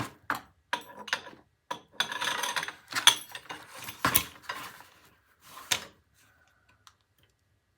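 Metal gears and axle parts of a Snapper mower drivetrain clinking and clattering as they are handled and set against each other on a workbench. The clinks and knocks stop about six seconds in.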